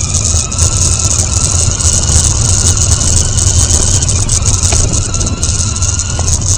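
Lego Technic RC car's electric motors and plastic gear train whining as it drives, the pitch rising gently and easing off again near the end, over a steady low hum and hiss.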